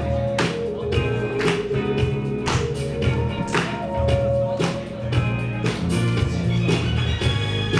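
Music with a steady drum beat, a strong hit about once a second, over a bass line and held notes.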